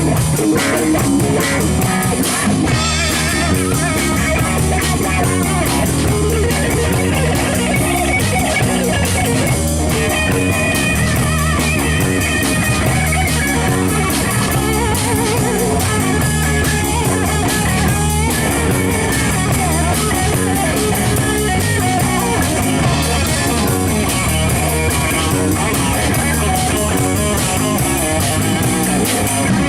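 Live rock power trio playing: electric guitar, bass and drum kit, with a steady beat.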